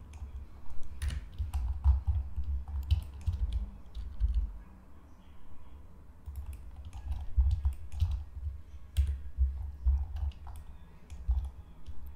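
Computer keyboard keystrokes and mouse clicks: irregular, sharp taps, with dull low thumps from the keys and desk.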